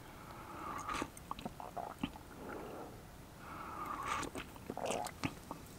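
Quiet sips from a mug, two slurping draws about three seconds apart, with small clicks in between.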